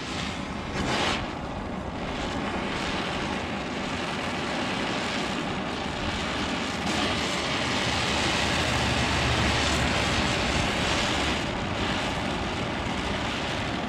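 Oxy-acetylene welding torch fitted with a number 4 tip, its flame burning with a steady rushing roar, with a brief louder surge about a second in.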